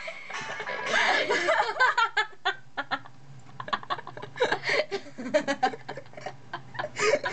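Two girls laughing in fits of giggles and snickers, in short rapid bursts.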